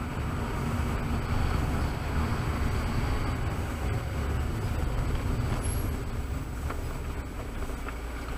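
Steady engine and tyre noise of a car driving along a street at low speed, heard from inside the cabin through a dash cam.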